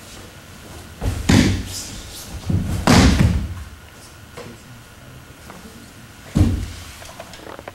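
Heavy thuds of bodies and hands hitting a padded training mat as an aikido partner is thrown down and pinned. There are thuds about a second in and about three seconds in, the second the loudest and longest, and another sharp one at about six and a half seconds.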